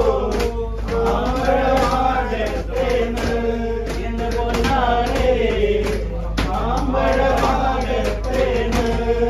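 Men singing a song, with long held notes that bend up and down, and sharp taps along with it. A low steady hum runs underneath.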